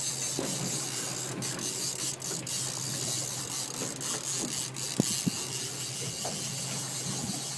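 Fishing reel ratcheting as a hooked fish is reeled in, over a boat engine's steady low drone and a constant hiss, with a couple of sharp knocks about five seconds in.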